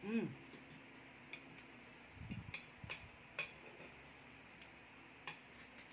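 Scattered light clicks and clinks of a fork on a plate during a meal, with a few soft thumps of handling food. At the very start a man's voice gives a brief hum that falls in pitch.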